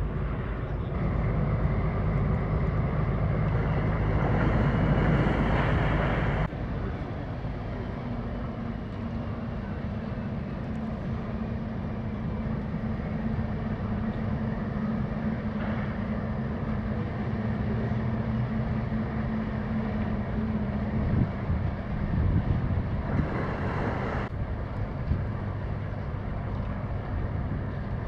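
Boat diesel engines running. A patrol boat's engine passes for the first six seconds or so, and after an abrupt change the tug towing the cargo ship gives a steady droning hum.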